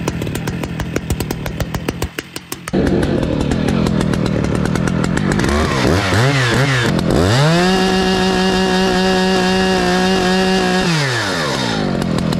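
Stihl MS 881 chainsaw's 121.6 cc two-stroke engine idling with a fast even pulse, then blipped up and down a few times. It is then held at full throttle at a steady high pitch for about three and a half seconds, and drops back to idle near the end.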